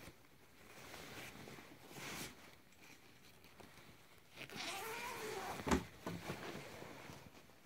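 Quiet rustling and handling of a folded fabric mattress cover being pulled out of a cardboard box. About halfway through there is a short pitched voice-like sound that bends up and down, followed by a sharp click.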